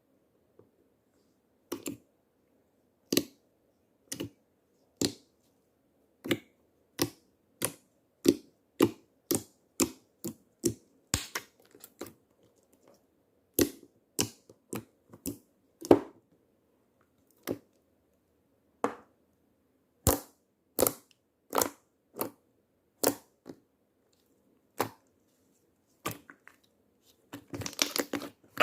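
Slime being pressed and poked by hand close to the microphone, giving sharp clicking pops one or two at a time at uneven spacing, turning into a quick run of crackles near the end.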